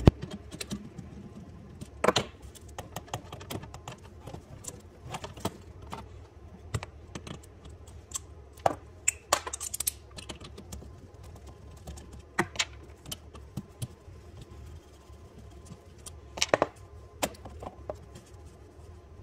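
Irregular light clicks, taps and a few sharper knocks of hand tools and metal and plastic parts being handled while working on a garbage disposal.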